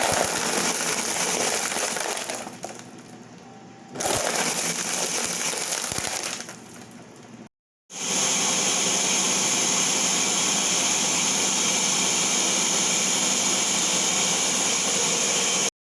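Countertop blender crushing ice with fruit and juice into a frozen drink: it runs unevenly for a few seconds, eases, picks up again, then runs steadily for about eight seconds.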